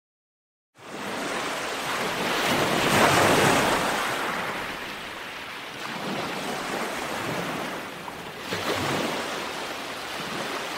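Waves washing up on a sandy shore: a steady rush of surf that starts about a second in and swells twice, once about two seconds in and again near the end.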